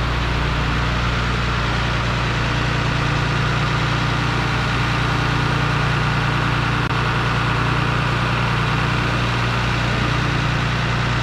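Truck-mounted crane's engine running steadily at idle, driving the crane while it holds a lifted car body, its note settling a little lower about a second in.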